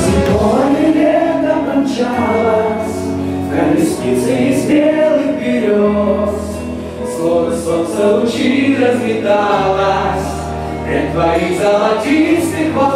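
Background music: a song with a melody line over held bass notes.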